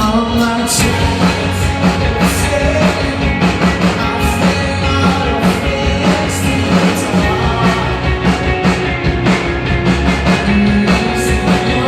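Loud rock music with a steady drum beat and sustained instrument notes.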